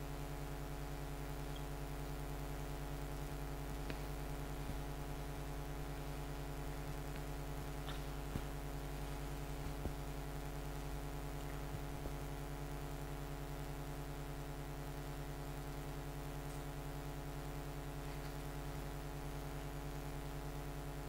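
Steady electrical mains hum with a stack of overtones, the room tone of the recording, with a few faint taps and clicks in the first half.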